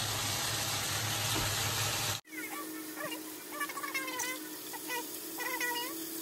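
Steady hiss of a pan of water boiling on a stove, cutting off abruptly about two seconds in. After that, quieter short high gliding calls sound over a low steady hum.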